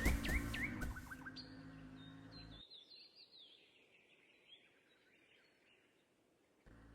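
A quick run of high chirps, each sweeping up in pitch, then fainter falling chirps that die away to near silence about three seconds in.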